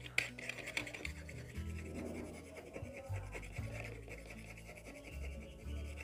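Rapid scratching strokes as a small tool scrapes the scratch-off authenticity label on a cardboard camera box, strongest in the first half, over background music with low, steady bass notes.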